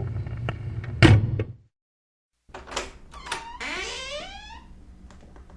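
Door hinges creaking. A squealing hinge ends in a knock about a second in as the door closes. After a brief cut to silence come a couple of clicks and another hinge creak that slides in pitch.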